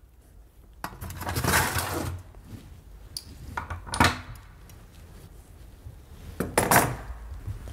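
Old engine timing parts (cam sprocket and chain tensioner) and shop rags being picked up and cleared off a workbench: light metallic clinks and knocks with cloth rustling. There is a sharp knock about halfway through and the loudest handling noise shortly before the end.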